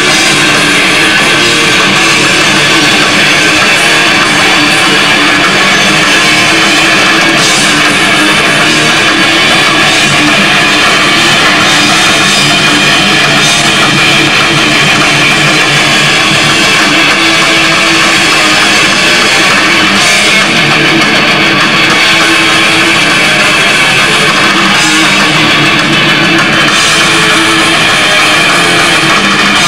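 Heavy metal band playing live: distorted electric guitars and a pounding drum kit, loud and continuous, recorded from the audience.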